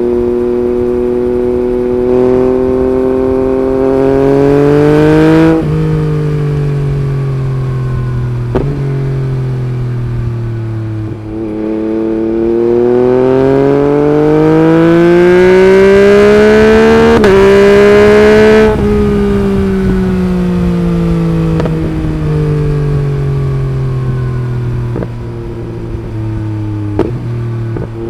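Yamaha MT-09's 890 cc inline-three engine through an Akrapovič Racing Line carbon exhaust, on the move. The revs climb for a few seconds and cut off sharply, sag, then climb again in a longer pull of about seven seconds with a brief step down near its top, like a quickshifted gear change, before the throttle closes and the revs fall away slowly. A few sharp cracks come as the throttle shuts.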